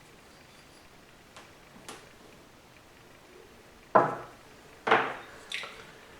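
Hard parts being handled and knocked down on a work surface: two faint clicks, then three sharp clatters about four, five and five and a half seconds in, each with a short ring.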